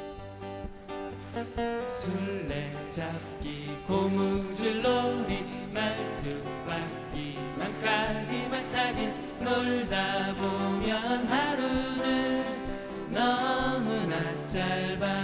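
Live acoustic folk-pop song played on steel-string acoustic guitars, picked and strummed. Male vocals come in about two seconds in.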